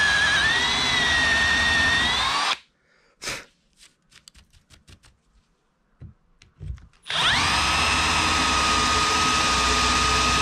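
Power drill boring out an aluminum blind rivet sleeve in a hatch lid hinge: the drill runs under load, stops about two and a half seconds in, and a few light clicks and taps follow. About seven seconds in the drill starts again, spinning up quickly and then running steadily.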